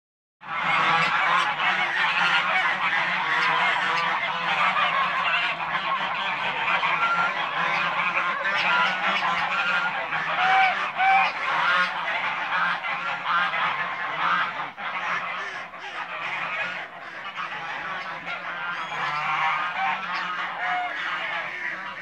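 A flock of Toulouse and white domestic geese honking and calling nonstop, many voices overlapping. It starts abruptly about half a second in and eases a little in the second half.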